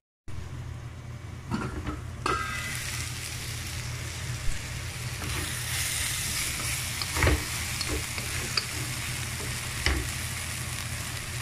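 Chopped raw banana and onion frying in a nonstick pan: a steady sizzle, with a few short knocks of stirring against the pan.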